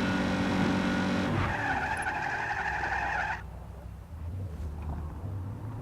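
Video game car driving: the engine runs steadily, then a tyre skid sounds for about two seconds, after which only a quieter low engine hum is left.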